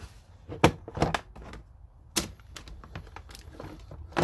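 Sharp plastic clicks and knocks from handling a plastic tool case and its snap clips, several separate clicks with the loudest about two-thirds of a second in, around a second in, just after two seconds and at the end.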